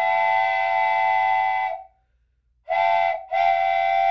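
Steam locomotive whistle blowing a chord of several steady tones: one long blast, then after a pause a short blast followed straight away by a longer one.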